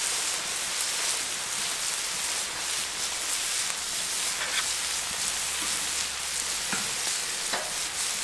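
Scallops and melting butter sizzling steadily on a hot steel griddle plate, with a few faint crackles in the second half.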